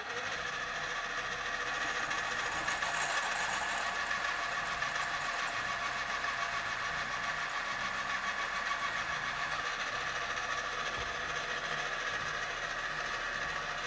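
Benchtop drill press (1975 Solberga) running steadily with a steady whine, drilling a 5 mm hole in a steel compressor cylinder.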